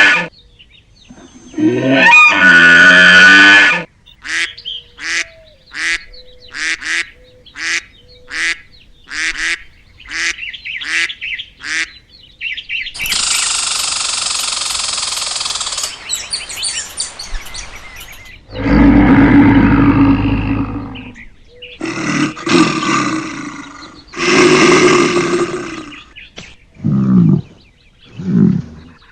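Calls of several different farm animals one after another, among them a run of short repeated honks. There are long loud calls, a noisy hiss-like stretch and a deep call in between.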